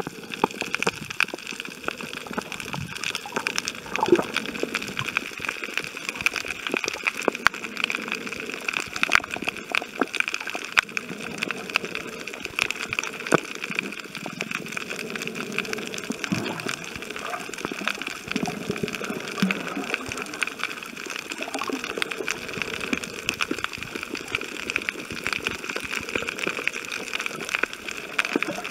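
Underwater sound while snorkeling over a reef: a steady watery hiss thick with tiny clicks and crackles, with muffled gurgling and sloshing.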